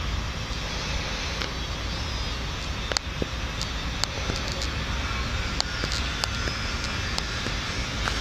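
Steady rumbling outdoor background noise, with a dozen or so short sharp clicks scattered through it.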